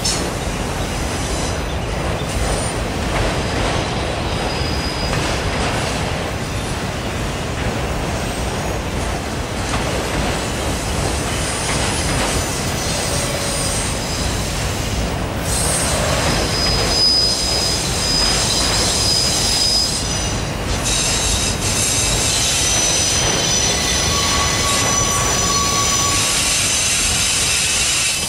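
Multi-level autorack freight cars rolling past close by: a steady rumble and rattle of steel wheels on rail, with thin high-pitched wheel squeals coming and going from about halfway through.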